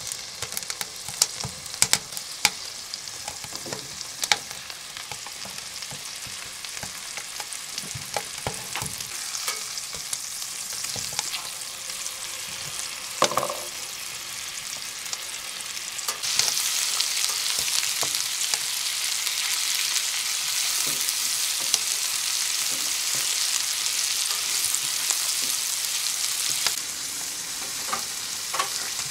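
Steak and mushrooms sizzling in a steel frying pan on a wood-burning stove, with fat spitting in frequent sharp pops. About halfway through, the sizzle suddenly grows louder. It eases somewhat near the end.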